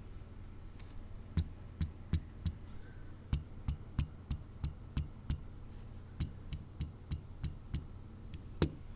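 A Xiaomi Redmi Note 3 Pro being shaken, with something loose inside the phone clicking and knocking, about three sharp clicks a second in short runs with brief pauses between. The rattle is a fault: a part inside the phone is loose.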